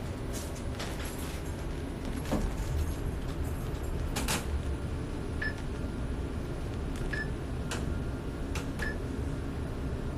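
Steady low rumble with scattered clicks and knocks from a handheld phone being moved against clothing, and three brief faint chirps in the second half.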